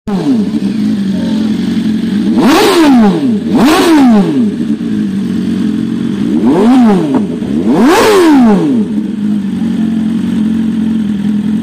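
BMW S1000RR's inline-four engine through an Arrow full-system titanium exhaust, idling and blipped four times, each rev rising and falling quickly. Two blips come around three to four seconds in and two more around seven to eight seconds, with the engine settling back to a steady idle after each.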